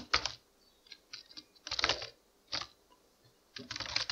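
Typing on a computer keyboard: short runs of keystrokes with pauses between, and a longer quick run near the end.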